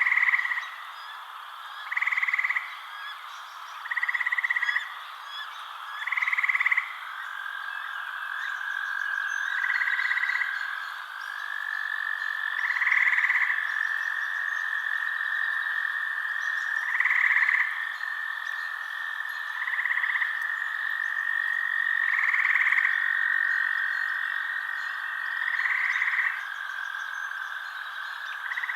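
Frogs calling in a night chorus: short croaking calls repeat about every two to three seconds over a continuous high, steady trill.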